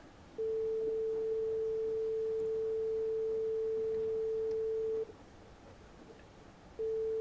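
Steady 400 Hz sine test tone playing through the Akai AA-5800 amplifier. It starts about half a second in, cuts out about five seconds in and returns nearly two seconds later.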